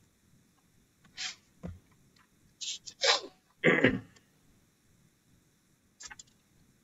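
Scattered short noises from a person, the loudest a sneeze-like burst between about three and four seconds in, with a shorter burst of noise near the end.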